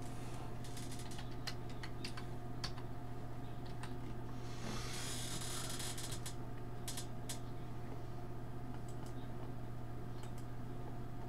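Computer keyboard typing in short runs of keystrokes, with a few separate clicks, over a steady low electrical hum. A soft hiss lasting about a second comes midway.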